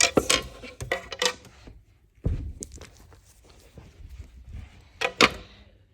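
Dolls and toy pieces handled against a dollhouse: a run of sharp clicks and taps, a dull thud about two seconds in, light rustling, and a loud cluster of clacks near the end.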